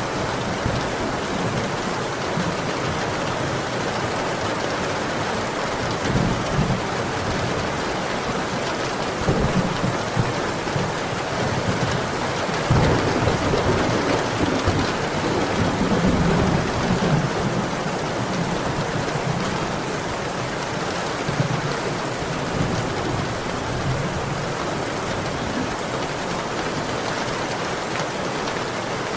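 Heavy rain pouring steadily, with rolls of thunder rumbling low underneath. The loudest peal begins sharply about halfway through and rumbles on for several seconds.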